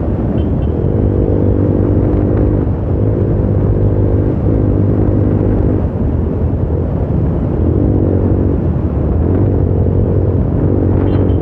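Bajaj Pulsar motorcycle's single-cylinder engine running steadily at about 80 km/h, its note shifting slightly with the throttle, with a steady low rumble of wind and road under it.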